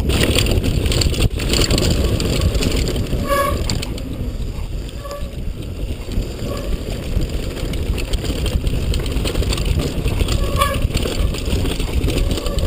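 Mountain bike riding fast down a dirt and gravel trail: the tyres and frame rumble and rattle over the rough ground while wind buffets the bar-mounted camera's microphone. A few brief high-pitched squeaks sound several seconds apart.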